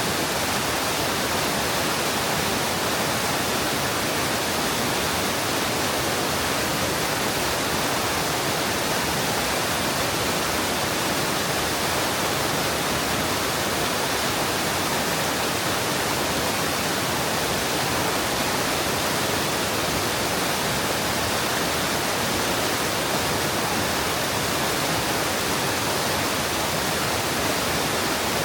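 Steady rush of water cascading down a rocky mountain stream, an even hiss that does not change.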